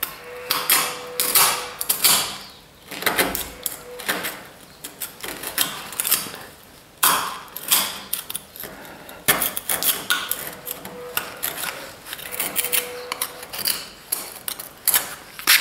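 Metal spatula scraping and working plaster at a wall corner: a run of short, irregular strokes, a few each second.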